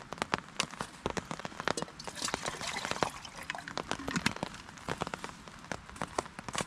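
Heavy rain dripping onto a tarp overhead: irregular sharp ticks of single drops over a steady hiss of rain. Partway through comes a denser hiss and clatter as a camp stove is lit and a pot is set on it.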